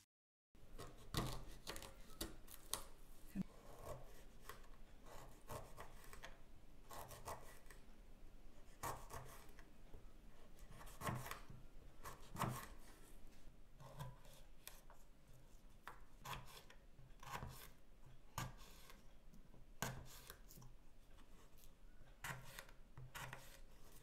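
Kitchen knife cutting fresh ginger root on a wooden cutting board: a run of short, uneven cuts, roughly one a second, each blade stroke knocking through onto the wood.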